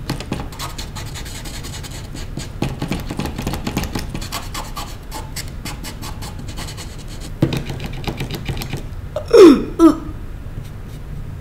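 Paintbrush scratching and dabbing on a canvas in many quick, light strokes. About nine and a half seconds in, a person's brief vocal sound, louder than the brushing, sweeps quickly down in pitch twice.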